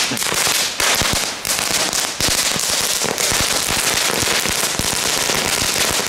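A whole pack of category 1 firecracker strings (knetterlinten), lit together, going off as one dense, rapid, unbroken crackle of small bangs.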